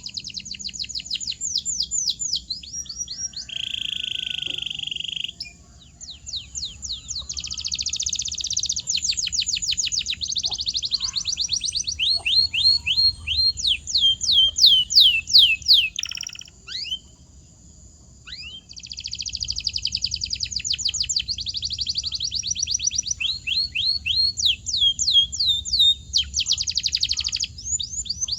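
Canary singing: long, rapid trills of repeated falling whistled notes, with a brief buzzy rolling phrase a few seconds in and a short pause about two-thirds of the way through.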